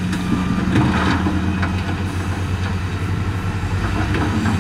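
Heavy dump truck's diesel engine running steadily, with clattering as earth and rock slide off its raised bed, about a second in and again near the end.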